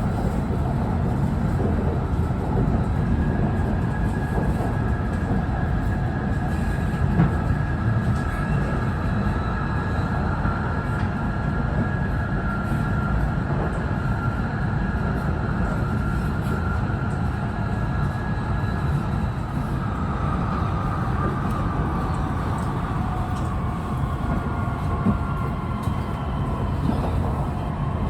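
Running sound of an E6 series Shinkansen heard from inside a car: steady rumble of wheels and track under a whine from its Toshiba IGBT VVVF inverter and traction motors. The whine holds steady, then slowly falls in pitch over the second half.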